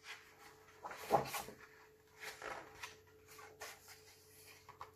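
Paper rustling and handling as a paperback picture book's cover is opened and its pages turned by hand: a few short rustles, the loudest about a second in.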